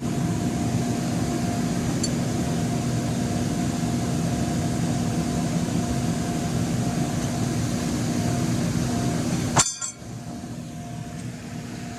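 Bounce house inflation blower running with a steady hum and a constant tone, stopping abruptly with a click about nine and a half seconds in, leaving a quieter background.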